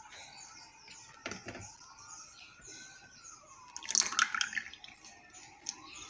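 Thin rice batter pouring and dripping from a plastic measuring cup into a plastic bowl, with a louder splash of liquid about four seconds in. A faint siren wails slowly up and down in the background.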